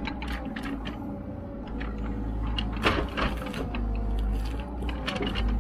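Small excavator's diesel engine running steadily under hydraulic load as its log grapple grips and drags a heavy log. Over it come repeated clunks and knocks from the grapple and the log scraping, densest about three seconds in. Such clunking is normal for log grapples even when they are greased daily.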